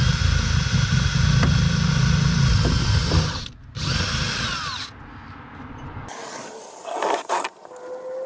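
Cordless drill driving screws through a mounting bracket into a plastic boat seat base. It runs steadily at speed, stops briefly about three seconds in, then runs once more and winds down at about five seconds. Lighter rattling and handling noises follow near the end.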